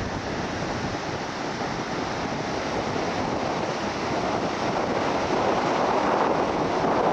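Surf breaking on a sandy beach, a steady rush mixed with wind buffeting the microphone, growing slowly louder toward the end.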